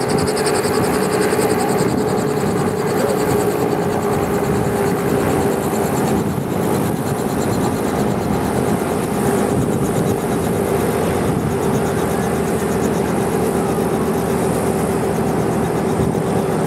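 Robinson R44 Raven II helicopter, its six-cylinder Lycoming piston engine running on the ground with the rotors turning, a steady whine over a fast rotor beat that fades about two-thirds of the way through.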